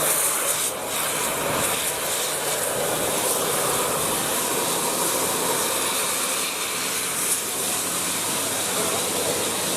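Steady rushing noise of road traffic, with a strong hiss and no horn sounding.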